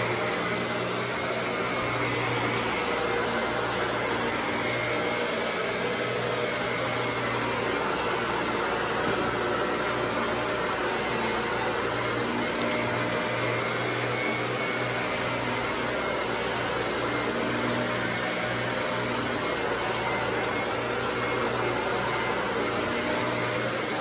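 Upright vacuum cleaner running steadily as it is pushed over thick carpet, its motor giving a constant hum under the rush of air.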